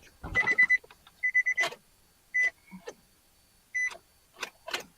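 Digital multimeter beeping in short single beeps, about four of them at uneven intervals, as its buttons or leads are worked. Between the beeps there are clicks and rustles from handling the test leads and clamps.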